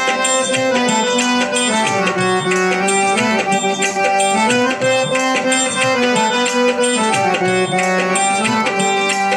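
Instrumental music from a devotional bhajan: a harmonium plays a melody of held notes that step up and down, over tabla.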